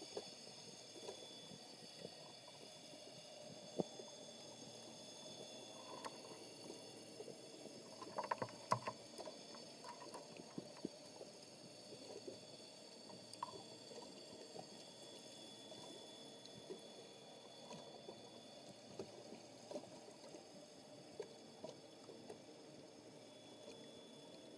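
Faint underwater ambience heard through a camera's underwater housing: a steady low hiss with scattered small clicks, and a short cluster of louder clicks and knocks about eight seconds in.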